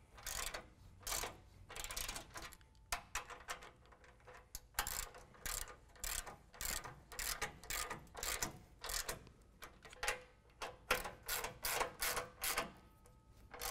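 Socket ratchet tightening bracket bolt nuts: short runs of ratchet-pawl clicking, one after another, each on a return stroke of the handle.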